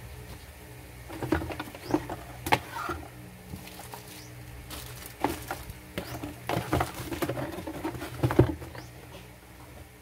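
Cardboard motherboard box and its cardboard insert being handled: scattered taps, knocks and rustles in two spells, with the loudest knock near the end.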